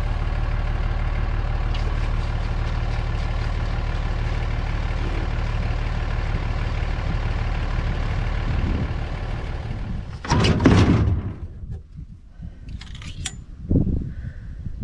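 A vehicle engine runs steadily for about ten seconds and then stops. A loud, brief clatter follows, then a few light metallic clicks.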